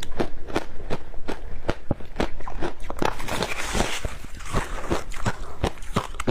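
Ice being bitten and crunched between the teeth close to the microphone: a rapid run of sharp cracking crunches, about three to four a second, with a brief hiss in the middle.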